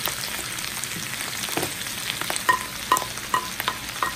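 Chicken and mushrooms sizzling in oil in a frying pan, with steady crackling. In the second half, a cooking utensil knocks and scrapes against the pan several times with short ringing clicks.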